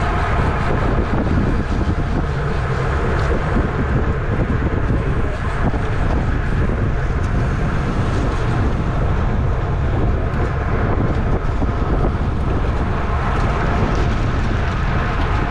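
Steady rush of wind buffeting the microphone of a camera on a racing bicycle at speed, with road and tyre noise underneath.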